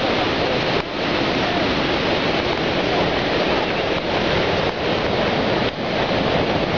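Jog Falls in heavy monsoon flow: a loud, steady rush of falling water that dips briefly twice.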